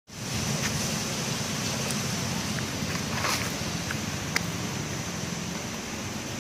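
Steady outdoor background noise: a thin, even, high-pitched drone over a low rumble, with a few faint clicks scattered through it.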